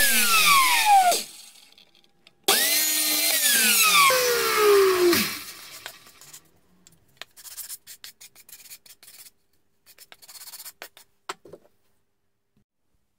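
Electric chop saw (mitre saw) cutting quarter-round beading. Its motor whine falls in pitch and dies away about a second in as the blade spins down. The motor is started again at about two and a half seconds for a second cut and winds down with a falling whine near five seconds. Faint clicks and knocks follow.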